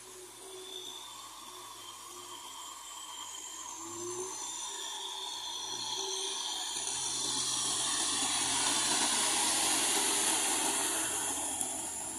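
Kubota tractor's diesel engine running under load while its rear rotary tiller churns wet paddy mud, with a steady low hum under a loud hissing, splashing wash. It grows louder as the tractor comes close and eases off near the end.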